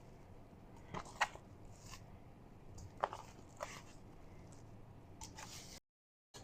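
Faint kitchen handling sounds: a few soft knocks and rustles as whole raw chicken breasts are handled and put into a large stock pot. The sound drops out completely for a moment near the end.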